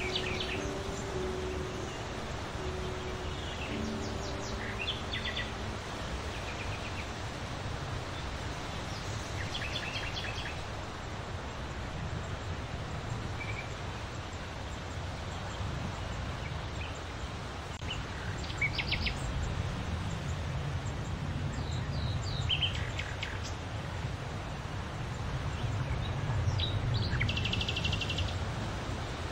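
Scattered short, high chirps of small birds over a steady low outdoor rumble like wind on the microphone.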